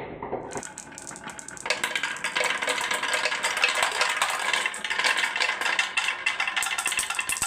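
Many marbles clicking and rattling together down a marble run: a dense clatter that thickens about a second and a half in.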